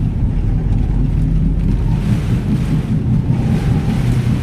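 A car speeding up through a typhoon downpour: a steady low rumble of engine, tyres and wind-driven rain, with wind buffeting the microphone.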